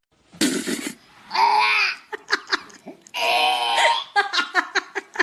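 A voice making two short calls, each rising and falling in pitch, after a brief hiss, with a few clicks between them.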